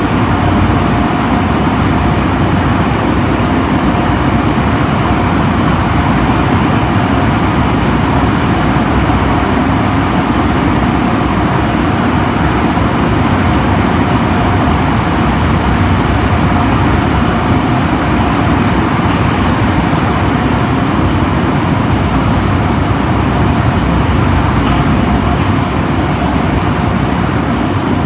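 Tunnel car wash dryer blowers running: a loud, steady rush of air with a constant whine, the hiss growing brighter about halfway through.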